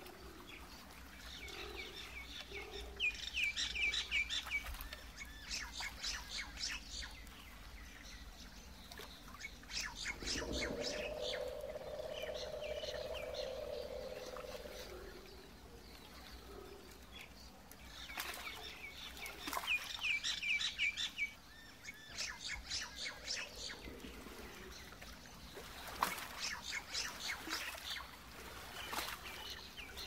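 Swamp wildlife: trains of rapid, high chattering calls a second or two long, repeating through, with one lower drawn-out call lasting about four seconds in the middle, over a steady low background.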